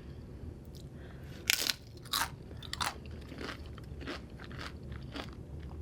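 Close-miked eating of crunchy food: three sharp crunching bites about one and a half to three seconds in, followed by softer chewing clicks.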